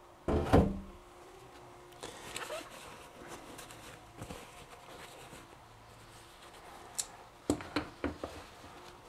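Handling noises from bench work on a quarter midget shock absorber: a loud thump about half a second in, then scattered light clicks and knocks of parts and tools.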